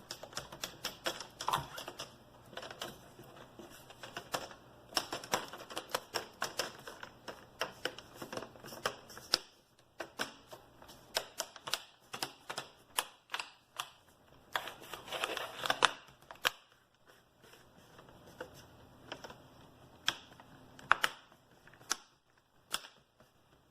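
Plastic screen bezel of an HP Pavilion 17 laptop being pressed back onto the lid, its clips snapping in as a long series of sharp clicks. The clicks come thick and fast at first, with a louder cluster about two thirds through, then thin out.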